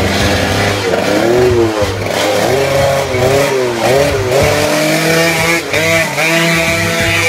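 Sportbike engine running and revving, its pitch rising and falling again and again as the throttle is blipped.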